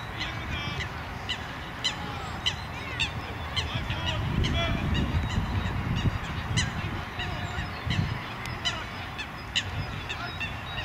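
Geese honking: many short calls in quick, irregular succession over a steady low rumble.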